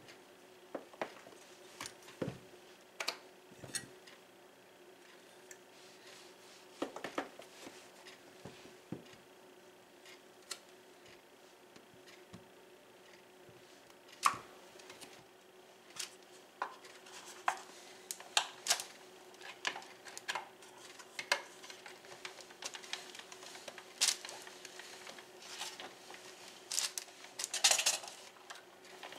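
A wide knife blade cutting through blocks of cheddar and mozzarella cheese on a wooden cutting board, with scattered knocks and clicks as the blade hits the board. Near the end, a rotary cheese grater starts shredding cheese with a steady rasp.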